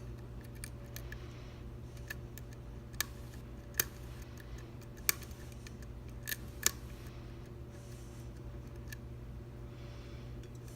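Irregular sharp metallic clicks from a lock pick working the pin stack of an Assa V-10 lock, several seconds of scattered ticks with a few louder clicks in the middle. A steady low hum lies underneath.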